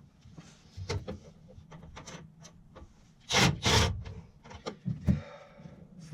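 Rubbing and scraping against wood, with scattered knocks and clicks; a loud double scrape comes about three and a half seconds in, and a sharp knock a little after five seconds.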